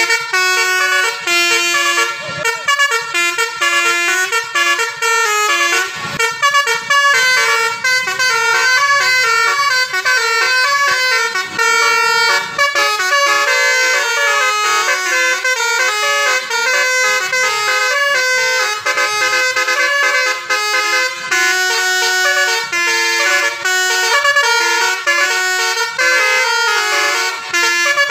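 Telolet multi-tone bus horn on the Blue Star bus playing a long melody: loud horn notes stepping quickly from pitch to pitch, several a second, without a break.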